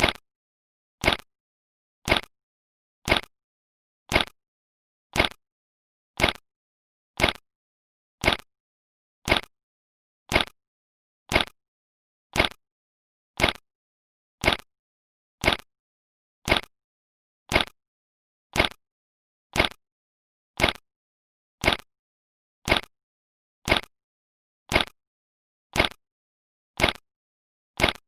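A 'bad signal' sound effect: a short, sharp blip repeating evenly about once a second, with silence between blips.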